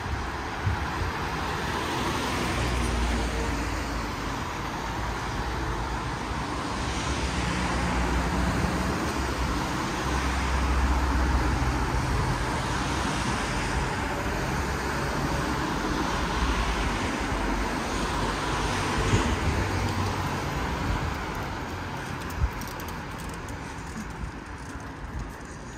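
Road traffic: several cars passing one after another on a wet street, their tyre noise swelling and fading every few seconds. The traffic thins out near the end.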